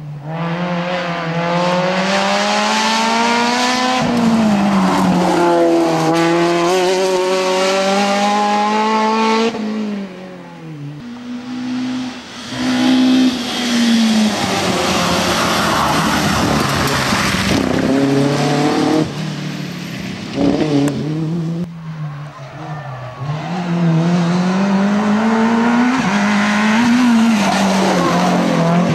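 Rally cars at full throttle on a stage, one after another. Each engine's pitch climbs hard through a gear, drops at the shift and climbs again.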